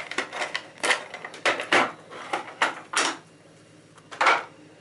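Sharpening bars clacking and knocking against each other as they are rummaged through and sorted, to find the most worn, smooth one. The knocks are irregular, with the loudest one near the end.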